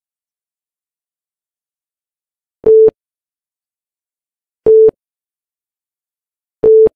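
Three short, identical electronic beeps at one steady mid pitch, one every two seconds: the countdown-leader beeps that mark each number of a video countdown.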